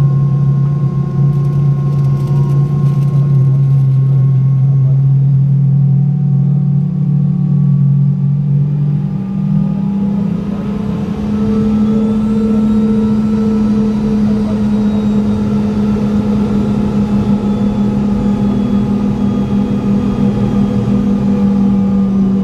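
Boeing 717's rear-mounted Rolls-Royce BR715 turbofan engines running while the airliner taxis, heard inside the cabin as a loud steady hum. About ten seconds in, the pitch steps up and then holds at the higher note.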